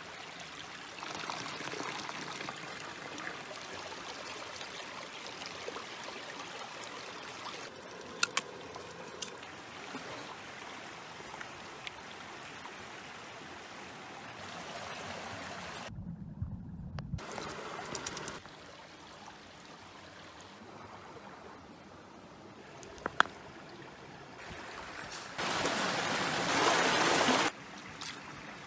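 Shallow mountain stream running over rocks, steady, with a few sharp knocks. Near the end, a louder rush of water lasts about two seconds.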